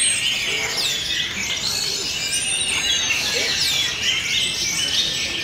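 Orange-headed thrushes singing in a contest line-up, many birds at once: a dense mesh of overlapping whistles and chirps.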